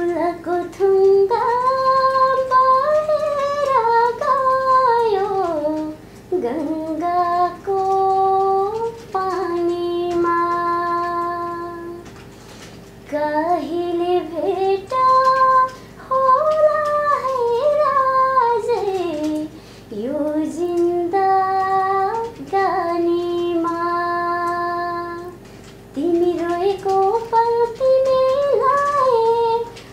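A young woman singing solo without accompaniment: a slow, ornamented melody in about five long phrases with held, wavering notes, with short breaths between phrases.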